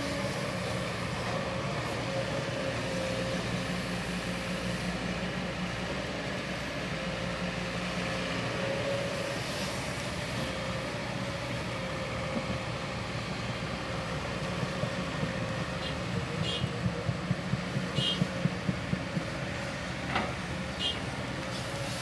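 Diesel engines of Kobelco crawler excavators running steadily while digging. From about fifteen seconds in comes a run of evenly spaced knocks, about three a second, for several seconds.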